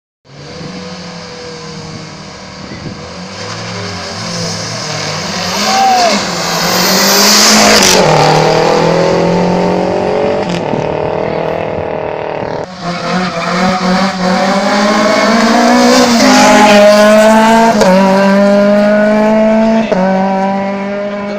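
Competition car engine at full throttle, revving up through the gears with a drop in pitch at each shift and growing louder as it nears. The sound breaks off about thirteen seconds in and a second run of the same hard revving follows.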